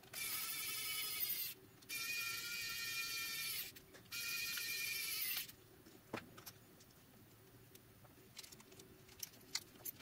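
Small electric screwdriver motor running in three steady bursts of a second or two each, driving the screws that close a GPS dog collar's plastic case. This is followed by a few light clicks and taps as the collar is handled.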